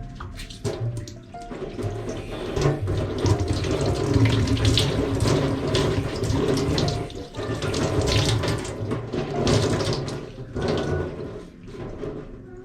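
Water running from a tap into a sink with splashing, starting about a second in and breaking off briefly twice.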